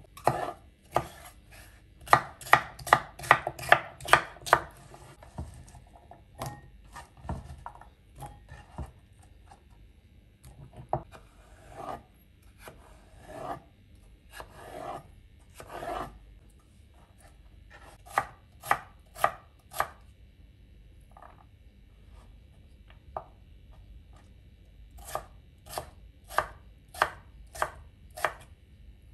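Kitchen knife dicing cucumber on a plastic cutting board: runs of quick blade strikes on the board, about three or four a second, separated by stretches of fewer, fainter strokes.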